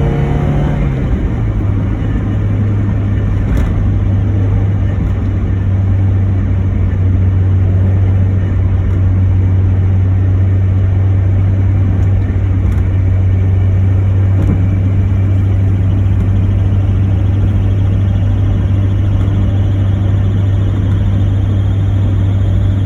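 Mazda Miata (NA) four-cylinder engine running at a steady idle, its pitch settling slightly about a second in, with a few faint brief ticks. The owner is trying to identify a chirping noise from the car.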